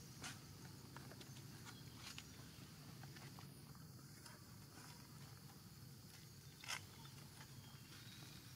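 Near silence: faint outdoor ambience with a steady high insect hum and a few soft clicks.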